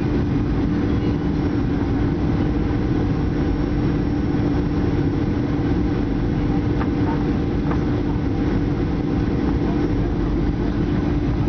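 Cabin noise inside a Boeing 737-800 on final approach, heard from a seat over the wing: the CFM56-7B engines run with a steady drone and airflow rush, holding a constant pitch and level.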